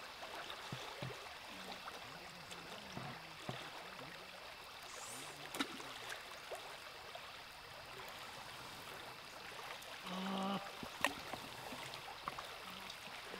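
River water running steadily, with a couple of sharp clicks and a brief pitched sound about ten seconds in.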